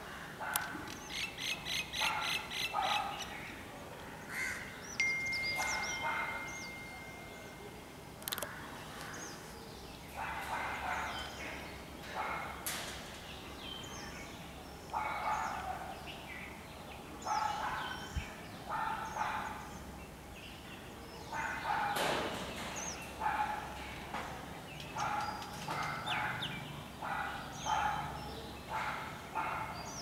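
Several birds calling: short harsh calls repeating in clusters throughout, a rapid trill in the first few seconds, and one thin steady whistle lasting about three seconds.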